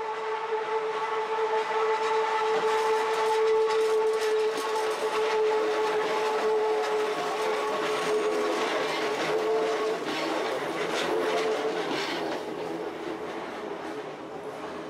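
Hakone Tozan Railway electric train running past close by: a steady whining tone over the rumble and rapid clicking of the wheels on the rails. It fades away near the end as the train leaves.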